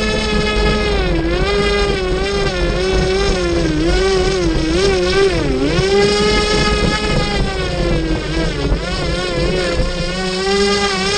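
Electric motor and air propeller of a scratch-built RC airboat running on a 4S battery, heard from on board: a steady high whine that wobbles up and down in pitch for several seconds in the middle, dips again later, then holds steady near the end. A low rushing noise runs underneath.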